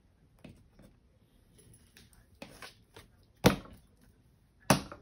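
Tarot deck handled on a tabletop: faint rustling and small clicks of the cards, then two sharp knocks about a second apart near the end as the deck is tapped on or set down on the table.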